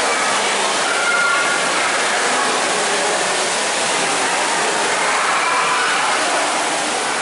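Steady rush of water in a thermal cave bath, with faint voices of bathers mixed in.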